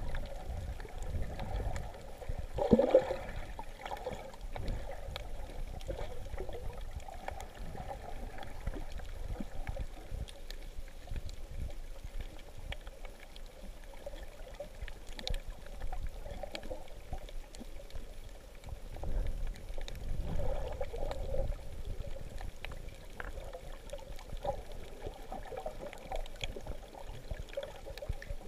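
Muffled water sloshing and gurgling heard through a camera held underwater, with a brief louder rising gurgle about three seconds in.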